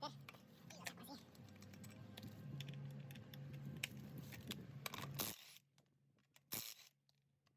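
Faint metallic clinks and handling noises of hand tools over a low steady hum, then dead silence from about five and a half seconds in.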